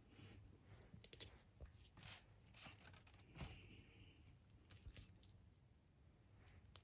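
Faint handling of a TAG Heuer chronograph on a rubber strap: scattered small clicks and rustles as it is turned over and fitted onto the wrist, the sharpest clicks about five seconds in.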